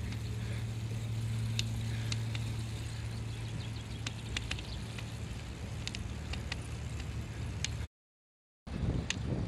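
Small-wheeled bicycle rolling over paving stones with scattered light ticks and rattles, over a steady low engine hum that is strongest in the first few seconds. The sound cuts out for under a second near the end, then returns with wind on the microphone.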